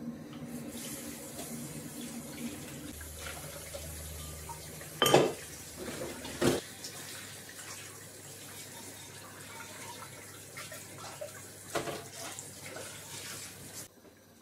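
Kitchen tap running into a sink while dishes are washed by hand, with three sharp knocks of crockery, the loudest about five and six and a half seconds in. The running water cuts off suddenly near the end.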